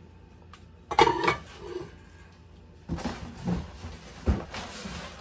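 A small granite-coated nonstick frying pan set down with a sharp metal clank and short ring about a second in. From about three seconds on, rustling and a few dull knocks of a cardboard box being handled.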